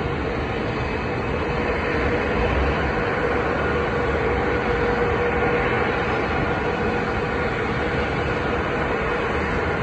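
Airbus A220-300's Pratt & Whitney PW1500G geared turbofan engines running at idle: a steady, even drone with a faint whine through it.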